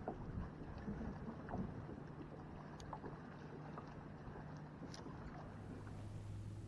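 Faint water and hull noise from a kayak on the water, with scattered small clicks and knocks over a low steady hum; the sound changes abruptly near the end.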